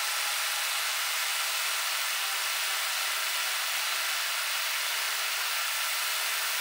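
Steady, even hiss with a few faint steady tones, unchanging throughout.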